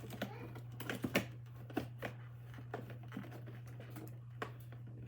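Cardboard box and packaging of a toy microwave being handled: scattered light clicks, taps and rustles, over a steady low hum.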